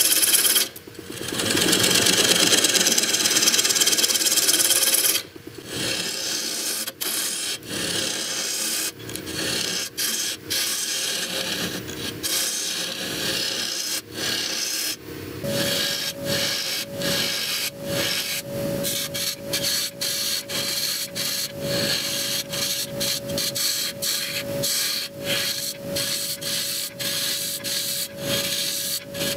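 A hand-held turning tool cutting the end face of a spinning wooden blank on a lathe: a loud scraping hiss for the first few seconds, then quieter and broken by many short gaps as the tool touches and lifts off the wood. A steady high hum comes in about halfway through.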